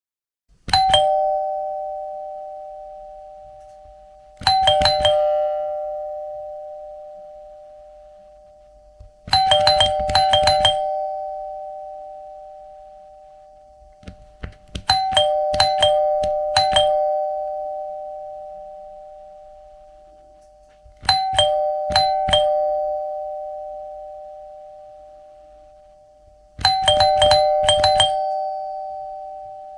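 Two-tone ding-dong doorbell chime, a higher note then a lower one, rung in six bursts about every five to six seconds. Some bursts hold several quick ding-dongs in a row, and each chime's tones ring on and fade slowly.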